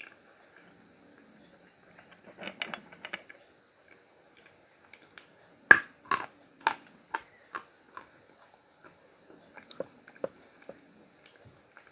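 Khrapovsky chalk being bitten and chewed with a dry crunch. There is a bite about two and a half seconds in, then a loud crack near the middle followed by a quick run of crunches about two a second, then softer chews near the end.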